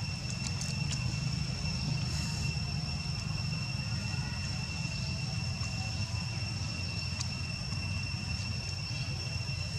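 Steady outdoor background noise: a low rumble under a thin, steady high-pitched whine, with a few faint clicks about a second in. No monkey calls stand out.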